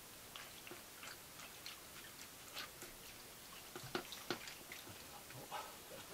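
Faint, scattered wet clicks and small splashes of a dyed cloth being dipped and worked by hand in a stainless steel bowl of madder dye liquid, with two sharper knocks about four seconds in.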